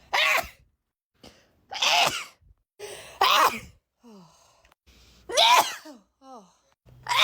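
A person sneezing four times in quick succession, loud sneezes about a second and a half apart, with short gliding vocal sounds between them.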